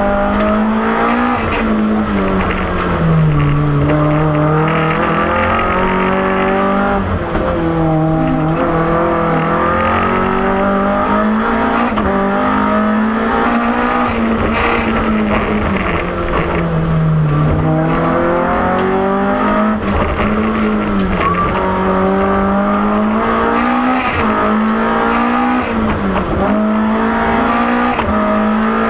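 BMW M3 E30 Group A rally car's four-cylinder engine at full effort, heard from inside the cabin, its revs climbing and falling over and over, with sudden sharp drops in pitch several times near the end.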